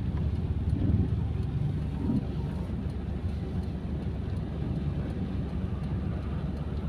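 Steady low rumble of a car's engine and tyres heard from inside the cabin as the car moves through traffic.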